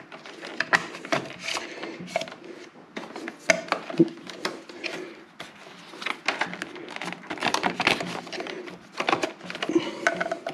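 Irregular plastic clicks and knocks as a motorcycle's electronic command module and its wiring connectors are handled and pressed back into their mounting.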